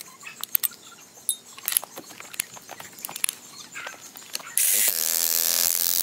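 Faint scattered clicks and knocks, then about four and a half seconds in an electric demolition hammer starts abruptly, loud and buzzing, hammering into a large rock. It is heard sped up with fourfold time-lapse footage.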